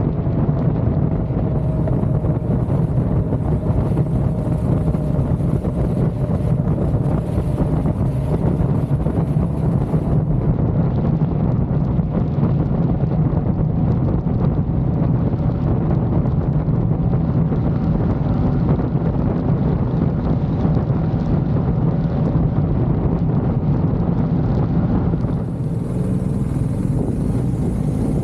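Steady low rumble with wind noise on the microphone, as from a vehicle in motion, and a faint steady hum above it.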